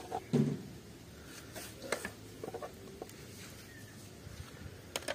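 Scattered light clicks and taps of small plastic toy animals being picked up and put down while being collected out of the muck.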